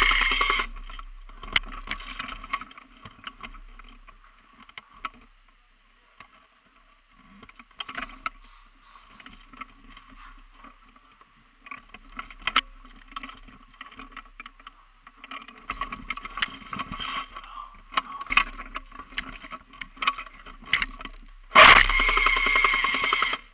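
Airsoft gun firing: a burst tails off just at the start, and another loud burst of about two seconds comes near the end. In between are scattered clicks and scuffs and fainter bursts of fire.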